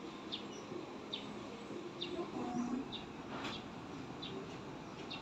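A bird chirping short high notes over and over, about once a second, over a steady outdoor background hiss.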